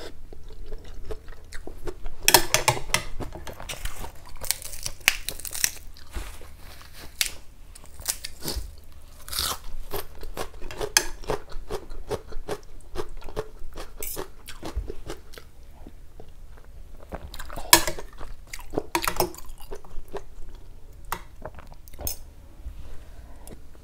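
Close-miked chewing and crunching of a mouthful of kuay jap noodle soup with crispy pork, with irregular crunches throughout and a dense run of them a couple of seconds in.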